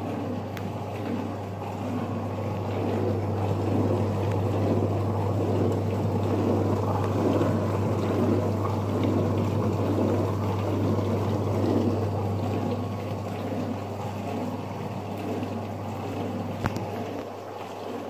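Midea ST 3.20N countertop dishwasher running its wash cycle: a steady low hum from the pump motor under water spraying inside against the door, swishing in a regular swell and fade. A single short click near the end; the machine is working again after repair.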